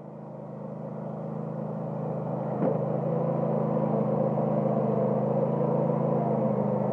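Cub Cadet LT1050 lawn tractor engine running steadily while plowing snow, growing louder over the first few seconds as it comes closer, then holding level. A faint knock sounds a little under three seconds in.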